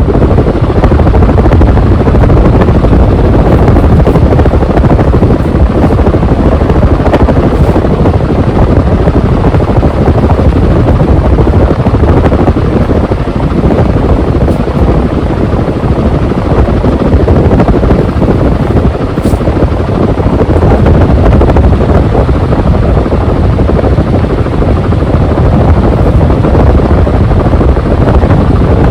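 56-inch TroposAir Tornado ceiling fan running at high speed: a loud, steady rush of air, its downdraft buffeting the microphone.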